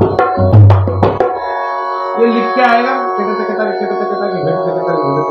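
Dholak played with quick hand strokes and deep bass-head notes, stopping about a second in. Steady sustained background tones carry on after it, with a man's voice humming or vocalising over them.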